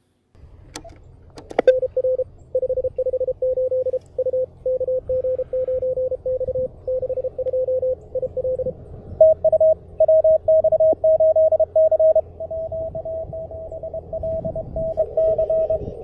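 Morse code (CW) signals received off the air on small QRP CW transceivers and played through a small portable speaker: a keyed beeping tone from the Elecraft KH1, then about nine seconds in the audio switches to the CFT1 and the keyed tone jumps to a higher pitch. Faint receiver band noise sits underneath.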